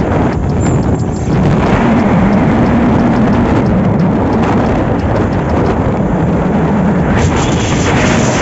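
Loud, steady low rumbling noise with no speech, dipping briefly about a second in and growing brighter and hissier near the end.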